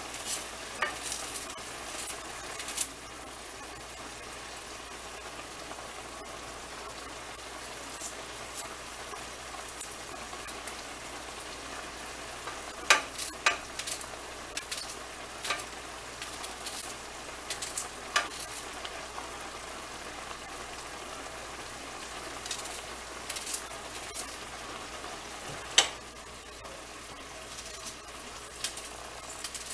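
Ground beef and bell peppers sizzling steadily in a hot skillet, with irregular sharp clicks and pops throughout. The loudest clicks come about halfway through and near the end.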